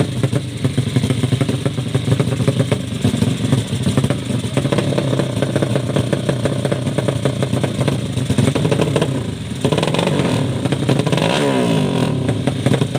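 Drag-race motorcycle engines running loud with rapid firing, the engine pitch sweeping up and down about ten seconds in as a bike revs.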